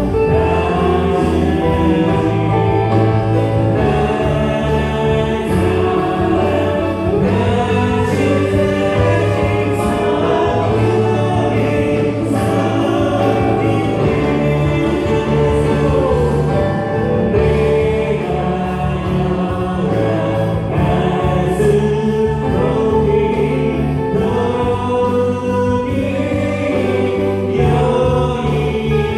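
Church praise band performing a worship song: a group of voices singing together in chorus over a Yamaha Montage 8 keyboard and an electric bass guitar.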